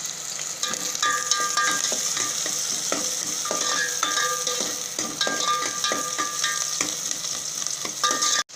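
Onions sizzling in hot oil in a pan while being stirred, the utensil knocking and scraping against the pan with short ringing clinks. The sound cuts off suddenly near the end.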